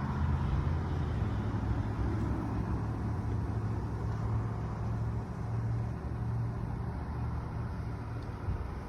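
Steady low drone of a running vehicle engine, with a faint even hiss above it.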